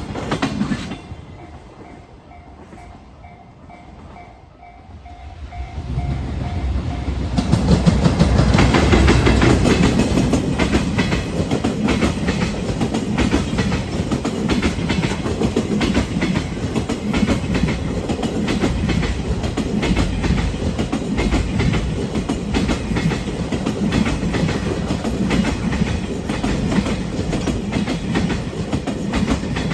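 Level crossing warning bell ringing in quick repeated pulses, then a freight train arriving about six seconds in and running past, its wheels clacking steadily over the rail joints.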